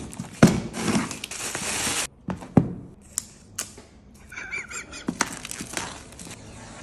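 Tear strip ripped along a cardboard shipping box: a long tearing sound for about two seconds, with a thud near its start. A few knocks follow as the box is handled, then plastic shrink wrap on the phone box is cut and peeled off with crackling and rustling.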